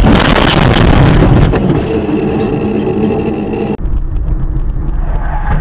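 Car dashcam audio: loud, rough road and driving noise, joined about two seconds in by a steady pitched tone. Just under four seconds in it cuts abruptly to the quieter, even hum of a car driving along a road.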